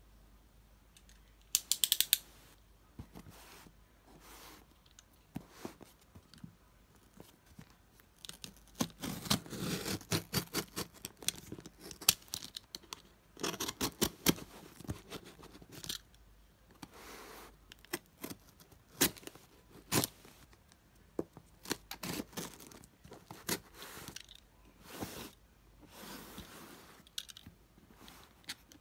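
Utility knife slicing along the packing tape and cardboard of a parcel, with irregular scraping, rustling and handling of the box. A quick run of sharp clicks about two seconds in.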